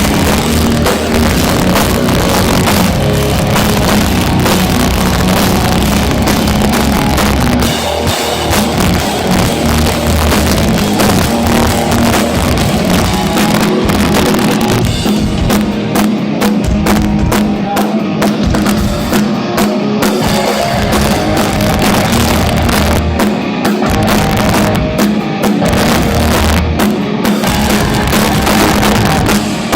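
Live heavy rock band playing loudly during a sound check: a pounding drum kit with kick drum under distorted electric guitars and bass. The low end drops away for a moment about eight seconds in, and the drumming turns more broken and stop-start in the second half.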